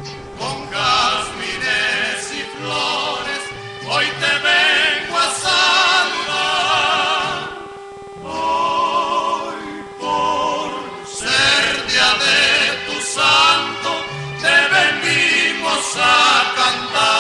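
Recorded music played over a sound system: several voices singing long held notes with vibrato, choir-like, in phrases with a short break about eight seconds in, over a steady underlying tone.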